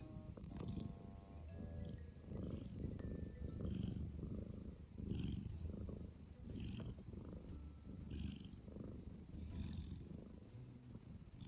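Domestic cats purring close up: a low rumble that swells and eases with each breath, about every one and a half seconds.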